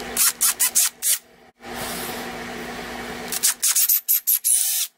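Handheld power drill running with a steady whine, its twist bit boring into the end of a turned wooden lure body. Several short, loud rasping bursts come as the bit cuts the wood, in two clusters, with a brief stop just after a second in.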